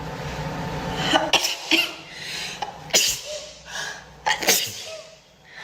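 A woman sneezing repeatedly: a run of about five sharp sneezes, two close together near the middle and two in quick succession near the end.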